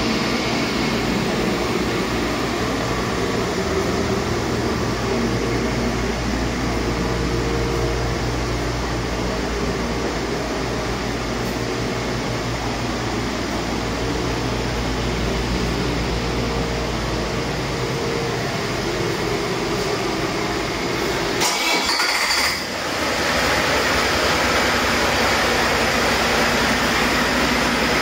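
Volvo D13M 455 hp inline-six turbodiesel, out of the truck on a test stand, running steadily at a constant speed. A short crackle and momentary dip in the sound come late on.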